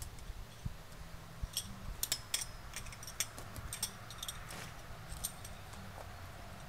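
A few light metallic clicks and clinks at irregular spacing: a tent strap being tightened and its metal clips and fittings handled.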